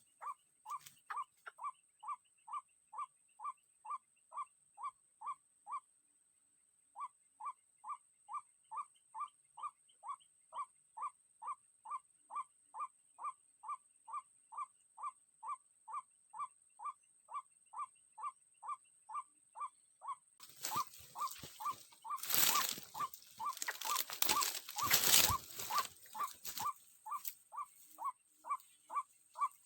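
White-breasted waterhen call played on a loop from an MP3 lure player: a short monotone note repeated evenly about two to three times a second, with a faint steady high whine under it and a brief break about six seconds in. From about twenty seconds in, several seconds of loud rustling cover the calls.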